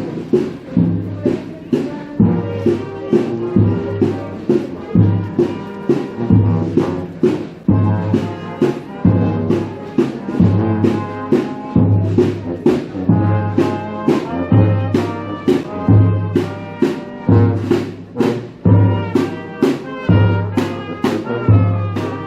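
Brass band playing march-like music with drums: deep bass notes pulse about once a second under trumpet and trombone lines.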